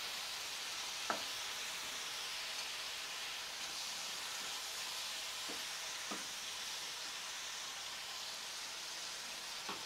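Squid stir-fry sizzling steadily in sweet-and-sour sauce in a nonstick frying pan, stirred with a wooden spatula that knocks lightly against the pan a few times.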